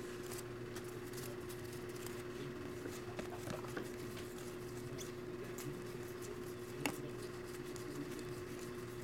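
Stack of baseball trading cards being handled and sorted by hand: faint, scattered ticks and slides of card stock against card stock, with one sharper click about seven seconds in.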